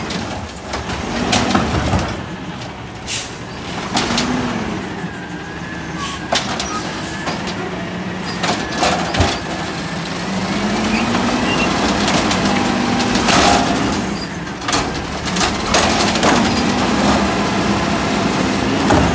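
Natural-gas-powered automated side-loader garbage truck running, its hydraulics whining up and down in pitch as it creeps forward, with repeated short air-brake hisses and clunks.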